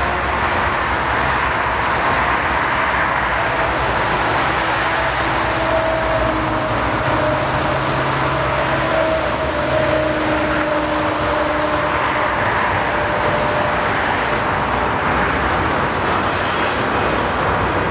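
Airbus A380's four jet engines running loud and steady during the landing rollout on a wet runway, a continuous rush with faint engine whine tones drifting slightly in pitch.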